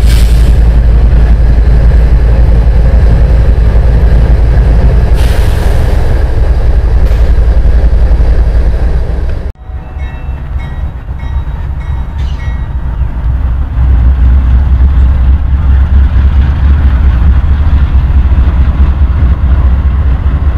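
Deep, steady rumble of a passing train, then an abrupt cut to a diesel freight locomotive approaching on the main line, its engine rumble swelling louder a few seconds after the cut.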